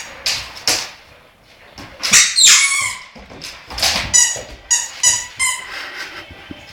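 A series of about a dozen short, high-pitched squeaks in quick succession, one in the middle gliding downward.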